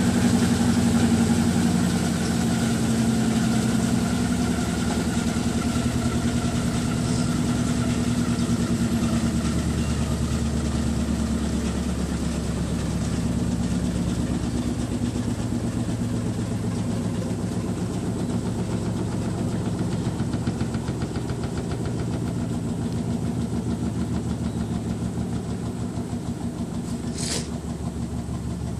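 Electrolux LT15F washing machine in its spin cycle: a steady motor and drum hum with several held tones that sag slightly in pitch, slowly getting quieter. A brief sharp click near the end.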